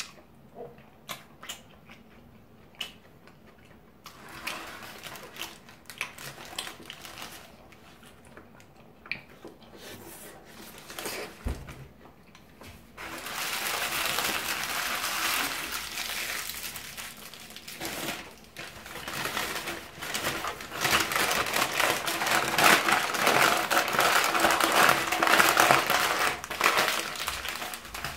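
Chewing and small mouth clicks at first, with one low thump a little before halfway. About halfway through, loud crinkling and crackling of a paper burger wrapper being handled and crumpled begins, growing loudest near the end.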